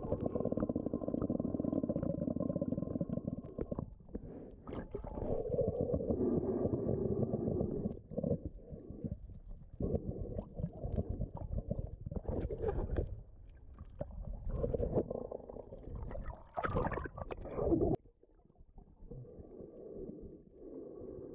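Muffled underwater rumble and gurgle of water moving around a submerged camera's housing as a snorkeler swims, with short knocks here and there. The level drops about eighteen seconds in.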